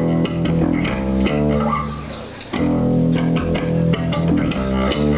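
Emo band playing live: electric guitar and bass guitar over drum hits. The playing drops back briefly in the middle, and the full band comes back in about two and a half seconds in.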